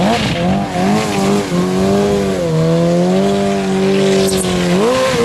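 Suzuki Hayabusa's inline-four engine revved hard during a burnout, the rear tyre spinning on the pavement. The revs rise and fall a few times, are held nearly steady for about three seconds, then drop and blip again near the end.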